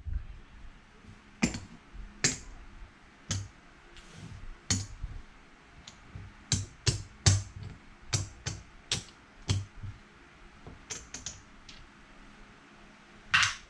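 Casino chips clicking against each other as they are picked up and stacked by hand: sharp single clicks at irregular intervals, with a longer, louder clatter near the end.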